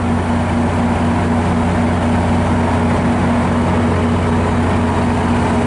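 Diesel locomotive of a MARC commuter train rolling past close by, its engine running with a steady low drone.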